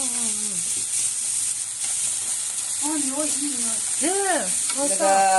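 Green onions frying in hot oil in a pan, a steady sizzle: the scallions are being fried dark to flavour the oil as scallion oil.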